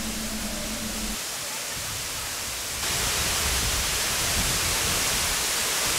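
Steady rushing roar of a tall waterfall pouring into its plunge pool, stepping up louder and hissier about three seconds in.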